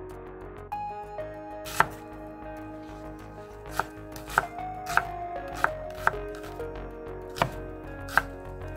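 Chef's knife dicing onion on a wooden cutting board: about eight sharp, irregularly spaced chops, starting about two seconds in.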